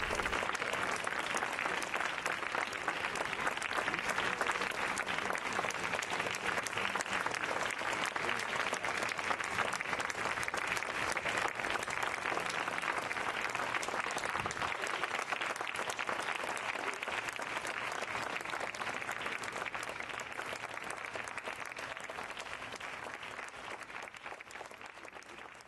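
Theatre audience applauding, the steady clatter of many hands clapping, dying away over the last few seconds.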